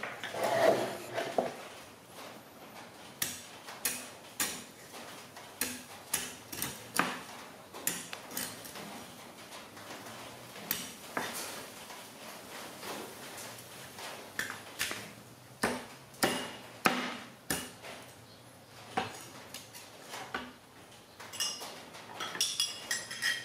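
Meat cleaver chopping cooked meat on a thick round wooden chopping board: a series of sharp knocks at uneven intervals. Near the end come lighter metal clinks of tongs against the cleaver as the chopped pieces are gathered.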